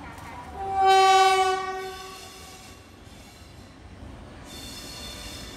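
Horn of an approaching Indian Railways locomotive: one loud, steady blast about a second and a half long, starting about half a second in. Near the end a fainter, higher note with a hiss begins.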